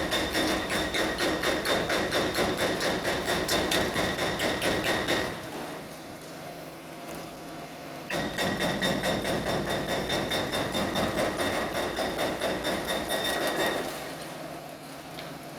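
Hydraulic breaker on a demolition excavator hammering concrete: rapid, evenly repeated blows with a metallic ring. It stops about five seconds in, starts again about three seconds later, and stops again near the end.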